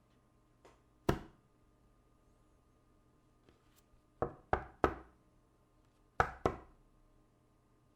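Hand striking a table: six sharp knocks, one about a second in, a quick run of three in the middle, and two close together near the end.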